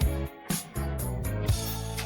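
Instrumental background music with a steady drum beat and guitar.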